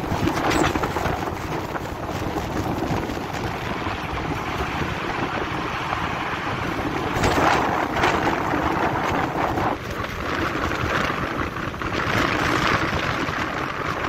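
Car driving on a dirt forest road, heard from inside the car: steady rumble of tyres on the dirt surface mixed with wind noise, swelling louder twice, about halfway through and near the end.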